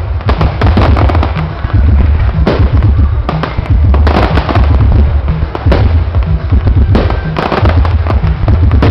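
Fireworks display with loud bangs every second or so, heavier ones among them, over dense crackling.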